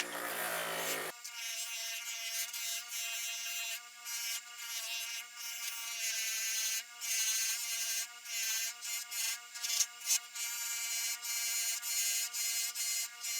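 Polishing wheel running with a steady whine, with repeated hissing rubs as the knife's metal handguard and pommel are pressed against it to buff them.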